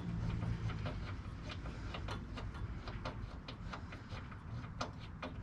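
Scattered light clicks and ticks of a ratchet and socket working a spark plug out of a snowblower engine.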